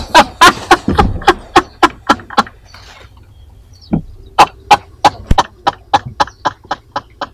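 A man's breathy, convulsive vocal pulses, about three a second, in two runs with a pause of roughly two seconds between them, heard inside a car.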